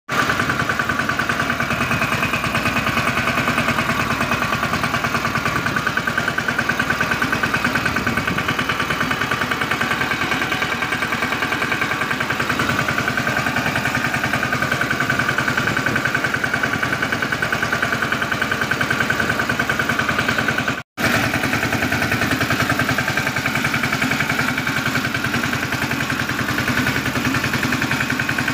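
Farm tractor's diesel engine running steadily while driving, its rapid even firing pulses heard close up from the driver's seat. The sound drops out for an instant about three-quarters of the way through.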